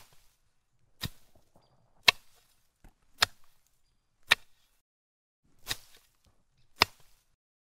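Plastic knife chopping down through a packed block of kinetic sand: seven sharp taps, about one a second.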